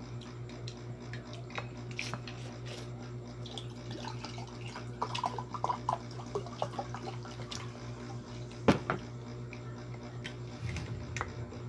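A drink poured from a glass bottle into a mug, splashing and dripping, with small clicks around it and one sharp knock about three-quarters through. A steady low hum runs underneath.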